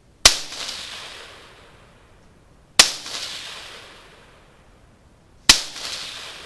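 AR-15 pistol in .223 firing three single shots, evenly spaced about two and a half seconds apart, each with a sharp crack and a long echo that fades out.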